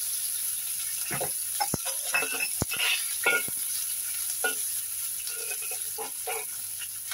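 Sliced onion sizzling in hot oil in a black wok, with a metal spatula scraping and clinking against the wok as the onion is stirred and tossed.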